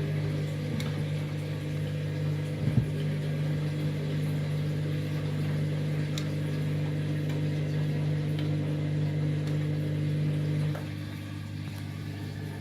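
Candy washing machine's drum motor running with a steady hum, with one sharp knock about three seconds in. The hum drops away suddenly near the end.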